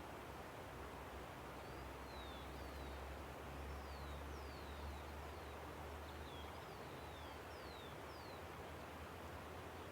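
A river rushes steadily and faintly with a low rumble underneath. Through the middle of it, a small bird repeats short, high whistles that fall in pitch, over and over.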